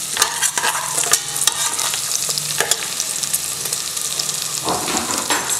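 Ghee sizzling in an aluminium pressure cooker, with cumin seeds and black pepper crackling as they pop, while a metal spoon stirs through it with a few louder strokes about five seconds in. This is the tempering for ven pongal, with asafoetida just added to the hot ghee.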